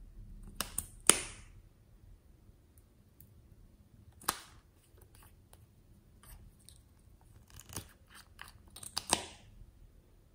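Sharp plastic clicks and pops from small plastic tubes and their caps being pulled open and handled: a few about a second in, the loudest among them, one near the middle, and a quick run of them near the end.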